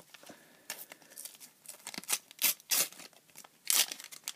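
A Panini sticker packet being torn open by hand: a run of crackly rips and crinkles of the wrapper, starting about a second in and loudest near the end.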